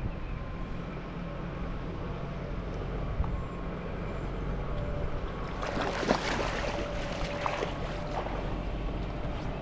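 Low wind rumble on the microphone. About six seconds in, a hooked trout splashes and thrashes in shallow water as it is drawn into a landing net.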